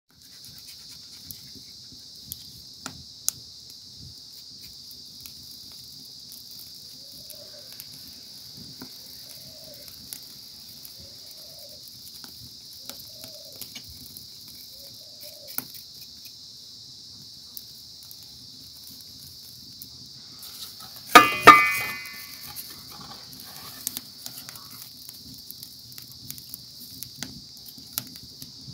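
Steady, shrill chorus of insects, with faint ticks and scrapes of a knife scraping the charred skin off a singed trotter. A loud cry sounds twice in quick succession about two-thirds of the way through.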